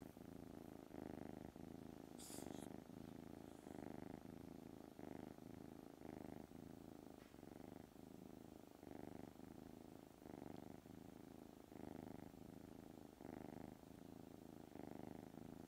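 Domestic cat purring close up, a soft continuous purr that swells and eases with each breath in and out, about every second and a half.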